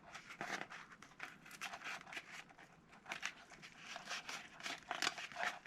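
Laser-cut cardboard and tape being handled and pressed into place, a run of irregular, faint crinkling and rustling.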